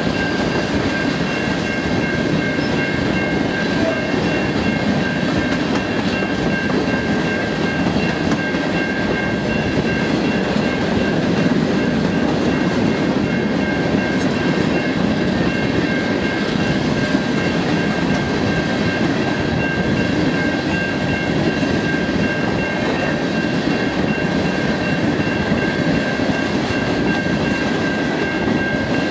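Freight train of covered hopper cars rolling past at speed: a steady rumble of wheels on rail with some clickety-clack, and a steady high ringing tone on top.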